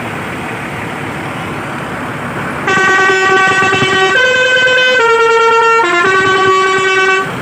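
A tour bus's basuri musical horn plays a short tune of about five stepped notes, starting about two and a half seconds in and cutting off sharply near the end. Before it there is only a steady noisy background.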